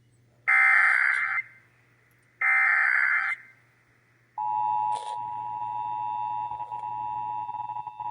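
Emergency Alert System SAME header: two harsh one-second bursts of digital data tones. About four seconds in, the steady two-tone EAS attention signal begins.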